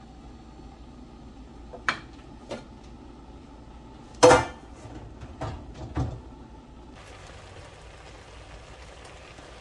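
Metal cookware being handled: a couple of light knocks, then one loud ringing clang about four seconds in and two more knocks. A faint steady hiss starts near the end.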